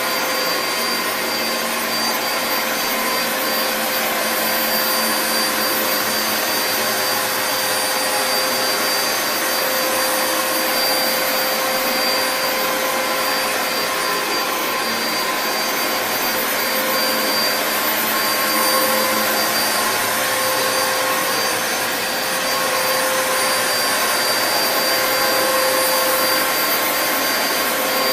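Dyson DC07 Animal bagless upright vacuum cleaner running steadily: a constant rush of air with a steady motor whine over it.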